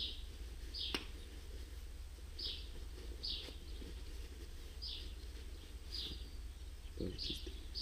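A small bird chirping over and over, short high chirps about once a second, over a steady low background rumble. A light click about a second in.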